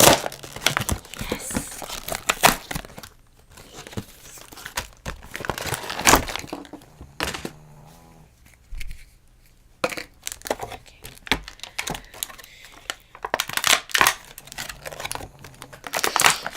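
Toy packaging being crinkled and torn open by hand, in irregular bursts with short pauses.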